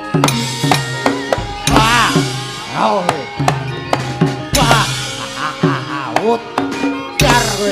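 Javanese gamelan playing fast battle music, with kendhang drum strokes and many sharp wooden knocks of the dalang's cempala and keprak. A voice with sliding pitch cries out over it several times.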